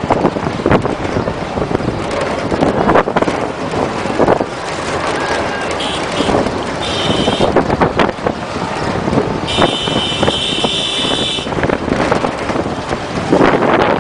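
Wind buffeting the microphone over a loud, continuous outdoor din. Two high steady tones sound over it, about six seconds in and again about ten seconds in.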